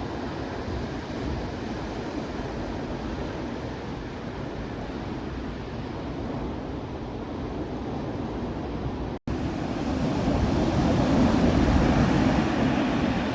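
Surf breaking on a wild beach, a steady wash of waves with some wind on the microphone. After a brief break about nine seconds in, the surf swells louder.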